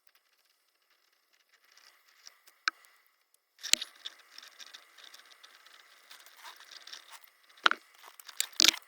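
Rustling and crinkling from handling a wiring harness and its wrap, broken by several sharp clicks and snaps.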